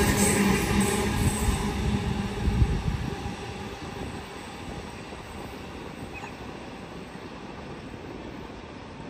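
A train passing on the tracks and fading away over about the first three seconds, leaving a quieter steady rumble.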